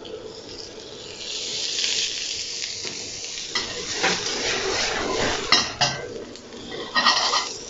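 Vegetables frying in a smoking-hot stainless steel wok, a sizzle that swells about a second in as sesame oil goes onto them. In the second half the pan is tossed on the gas burner, giving several sharp clatters over the sizzle.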